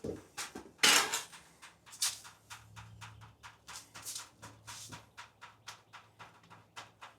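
Irregular light knocks, clicks and scrapes of things being handled, the loudest a little under a second in and again about two seconds in, over a faint low hum.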